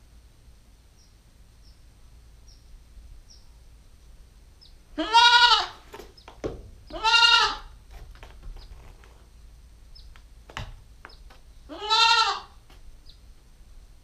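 Nine-week-old Nubian goat kid bleating loudly three times, each call rising then falling in pitch: two about five and seven seconds in, and one more near the end. A couple of sharp knocks between the calls.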